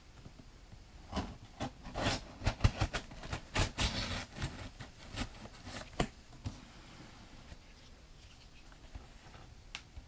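Hands handling a large corrugated cardboard box: a run of knocks, scrapes and rustles for about five seconds, then mostly quiet with a single click near the end.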